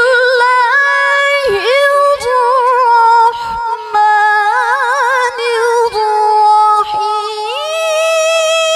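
A woman reciting the Quran in the melodic tilawah style, unaccompanied, into a microphone. She holds long notes ornamented with wavering trills, breaks briefly for breath a few times, and her pitch climbs near the end.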